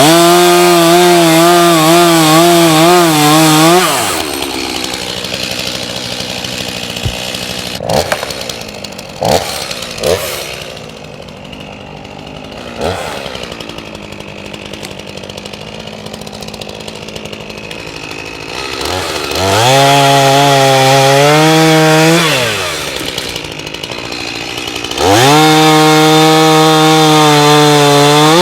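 Two-stroke chainsaw revved to full throttle three times for a few seconds each: at the start, about twenty seconds in, and near the end. In between it idles, with a few short throttle blips. The pitch wavers while at full speed.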